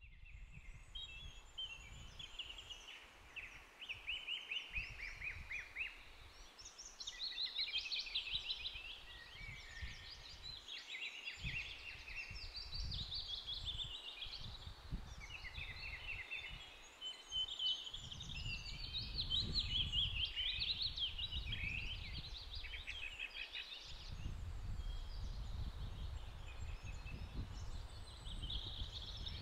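Songbirds singing continuously, with rapid chirps and trills, while wind gusts rumble on the microphone, more heavily in the second half.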